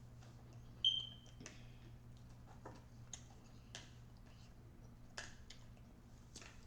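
Scattered soft clicks and taps of eating sushi, about six in all, the loudest a sharp click with a brief squeak about a second in, over a low steady hum.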